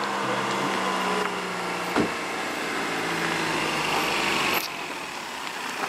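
Ford Transit hearse's engine running steadily as the van rolls slowly up close, with a single knock about two seconds in.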